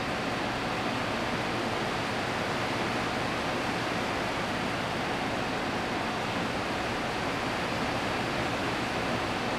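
Steady, even hiss with no speech: the background noise of a quiet room as picked up by the recording.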